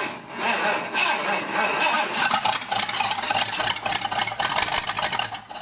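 The 1978 Ford F-150's 351 V8 cranking over on its starter for about six seconds, with a steady pulsing rhythm, then stopping suddenly without catching. This is a start attempt on a flooded engine that won't yet run on its own.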